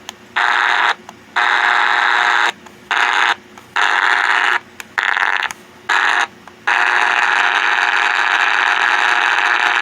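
Eton AM/FM/NOAA alarm clock radio on the AM band putting out loud static hiss with no station. The hiss cuts in and out in short bursts, then runs steadily from about two-thirds of the way through.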